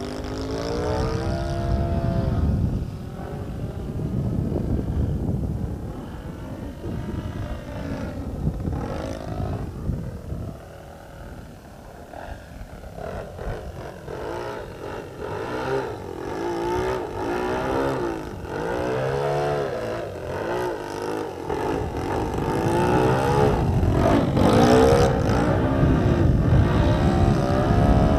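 RC aerobatic model plane's motor and propeller whining overhead, the pitch rising and falling again and again with throttle changes and passes.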